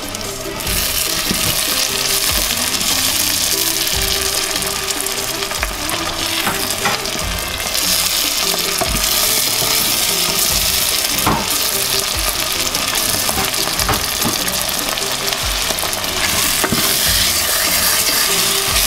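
Chopped onions sizzling steadily in hot oil in a stainless steel pot, stirred with a wooden spoon. They are cooked down to the stage where the oil starts to separate. The sizzle comes up loud about a second in.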